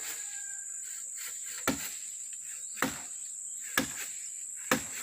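A steady, high-pitched chorus of insects, crickets by the sound of it, with sharp knocks about once a second on top.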